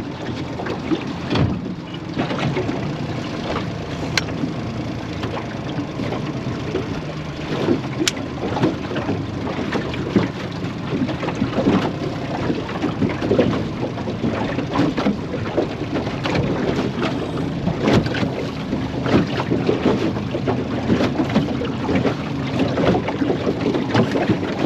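Small aluminium tinny under way on the water: a steady low outboard motor hum, with water slapping and splashing against the hull and wind on the microphone.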